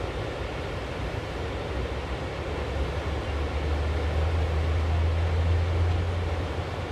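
Steady rush of flooded river rapids, with a low rumble underneath that swells about three seconds in and eases near the end.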